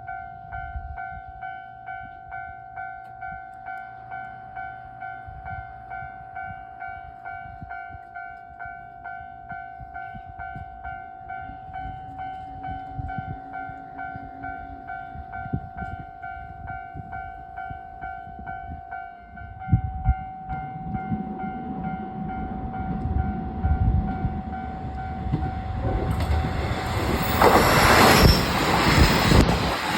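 Japanese level-crossing alarm bell ringing in a steady pulse about twice a second. From about 20 s in, the rumble of an approaching JR Shikoku diesel train joins it and grows until the train passes loudly near the end, drowning out the bell.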